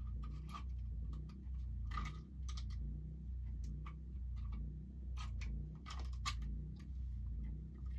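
Small, irregular clicks and light knocks of a hand tool working at a hooked walleye's mouth, over a steady low hum.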